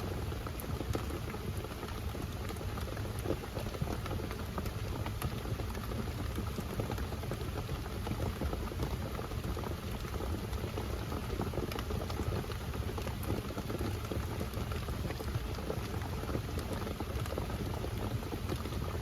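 Steady rain falling on a small bike camper, with many small drop ticks.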